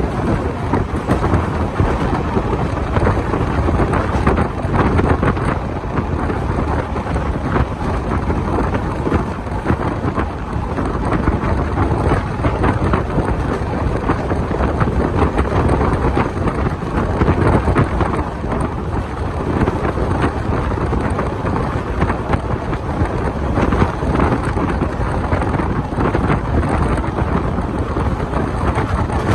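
Indian Railways passenger coach running at speed, with a steady rumble of wheels on the track and heavy wind buffeting the microphone at the open window.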